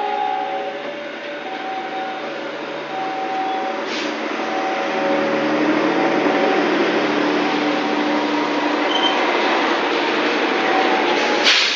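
Passenger train coaches rolling slowly past while being shunted backward by a diesel locomotive: a steady rumble of wheels on rail, with faint tones that come and go. There is a click about four seconds in and a sharp clack just before the end.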